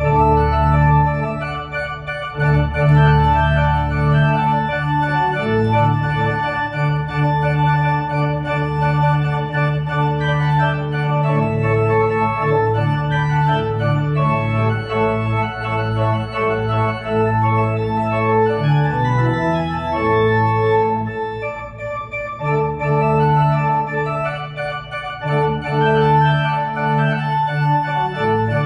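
Church organ playing the postlude that closes the service: sustained full chords over low held bass notes, the harmony changing every few seconds.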